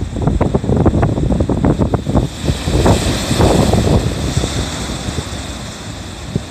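Sea waves breaking and washing over dark, blocky shore rocks; a large wave crashes into white foam about three seconds in, its hiss swelling and then fading. Heavy wind buffets the microphone.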